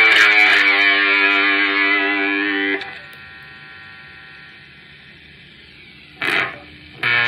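Electric guitar chord through a Malagoli Sound ES-3 fuzz pedal, sustaining and then cut off abruptly a little under three seconds in. This leaves a steady amplifier hum and hiss. Near the end there is a short burst, and the guitar starts again just at the close.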